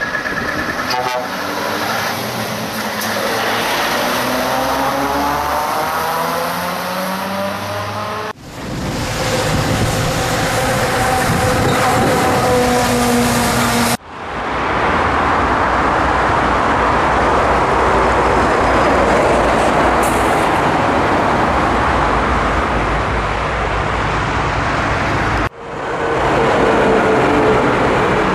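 Scania V8 diesel truck engines running on the road, heard in a string of short clips that change abruptly three times. In the first clip the engine note rises as the truck accelerates.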